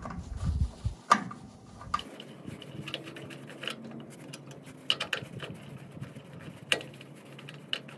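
Small metal parts being worked with hand tools: scattered light clicks and ticks as a threaded bolt and lock washer are taken off a tail lamp mount, with a sharper click about a second in.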